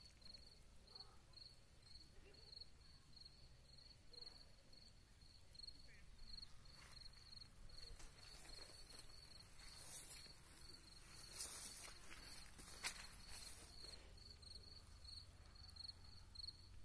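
Faint insect chirping outdoors: a steady high-pitched pulsing of about three chirps a second. Occasional soft rustles and one sharp click about three quarters of the way through.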